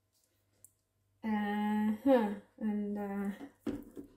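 A woman humming a few held notes, with a short glide between them. A short knock near the end.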